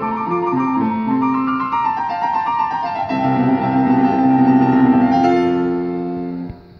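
Two grand pianos playing together in a duet: a run of moving notes, then from about three seconds in a long held chord that shifts once near the end before the sound cuts off.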